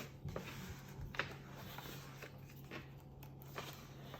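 Faint rustling of paper pages and a few soft clicks, as a picture book is handled and its pages turned, over a low steady hum.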